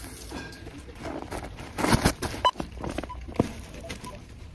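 Grocery packaging rustling and knocking as items are handled and scanned at a supermarket self-checkout, with a short scanner beep about two and a half seconds in.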